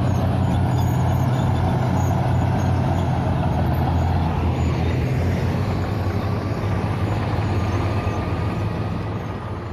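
Bulldozer's heavy diesel engine running steadily under load, fading out near the end.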